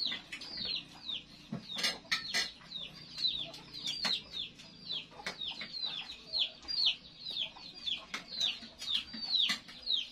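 Chicks peeping: a steady run of short, high, falling peeps, about three a second, with a few sharp clinks of spoons on plates.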